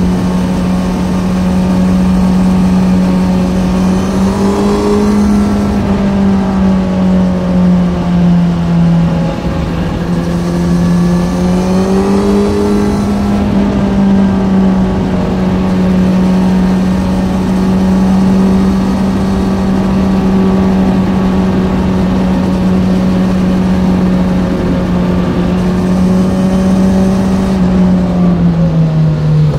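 Kawasaki Z900's inline-four through an Ixil SX1 full exhaust system, heard on the move. The revs are mostly held steady, easing down and climbing back twice early on and dropping briefly again near the end.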